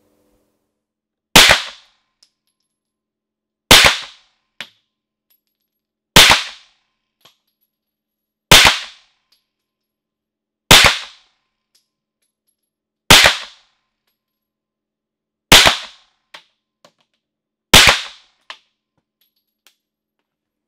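Long-barrelled Luger P08 pistol in 9mm Parabellum, fired from its attached wooden shoulder stock: eight single shots, slow and evenly spaced about two and a half seconds apart, a full eight-round magazine. Faint clicks follow some of the shots.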